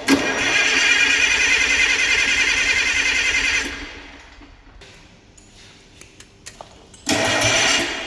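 Starter motor of a Cummins KT19 diesel generator engine cranking with a fast whirring for about three and a half seconds, then stopping. A few light clicks follow, and the cranking starts again about seven seconds in.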